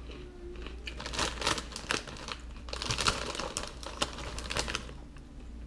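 Foil snack bag of Crunchy Cheetos crinkling and rustling in a run of bursts as a hand handles it and reaches in among the chips, starting about a second in.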